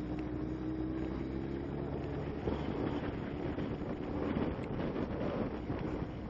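A vehicle's engine running steadily with wind noise on the microphone, its hum rising slightly in pitch over the first couple of seconds while the vehicle moves through traffic.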